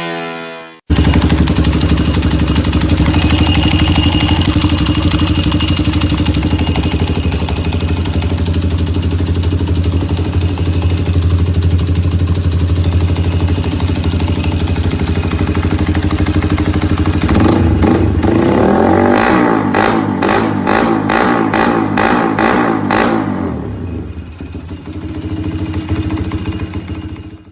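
Yamaha Y15ZR's single-cylinder four-stroke engine, fitted with an aftermarket exhaust and a Comstar dry clutch, running at a steady idle. From about two-thirds of the way in the sound changes to a quick run of repeated pulses, then it drops away.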